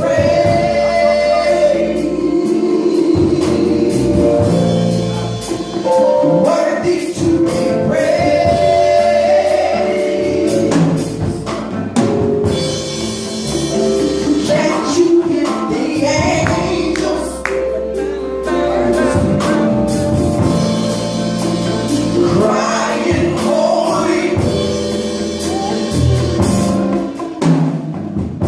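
Gospel worship song: a choir of singers with a band, drums keeping a steady beat under the voices.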